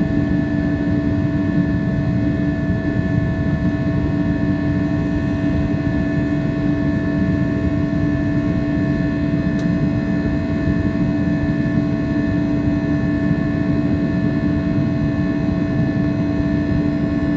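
Airliner cabin noise: a steady low rumble of jet engines and airflow with a few constant humming tones, holding unchanged in pitch and level.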